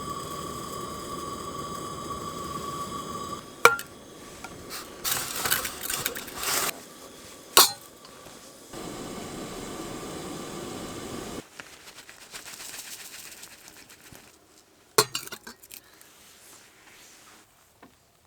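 Camp cookware clinking and knocking, with three sharp metallic strikes. A steady high tone runs for the first few seconds, and there are two spells of rushing noise in the middle.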